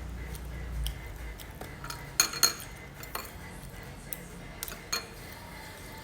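Eating utensils clinking against a bowl: scattered light clicks and taps, with two sharp ringing clinks close together about two seconds in.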